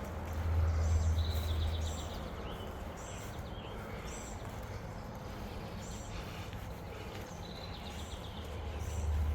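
Woodland ambience: small birds chirping repeatedly, with a short trill twice, over walking footsteps. A low rumble swells up briefly about a second in and again near the end.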